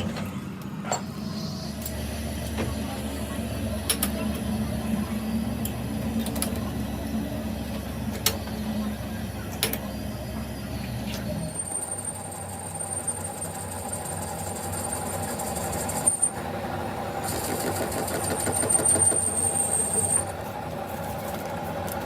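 Machine-shop equipment running with a low rumble and occasional sharp metal knocks. About halfway through the rumble stops and a steady high whine comes in twice.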